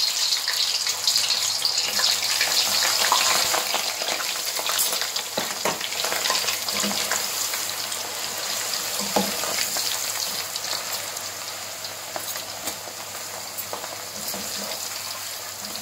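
Raw potato fries sizzling hard in hot oil in a kadhai, freshly dropped in, the sizzle slowly dying down. A slotted spoon stirs them, with a few light knocks.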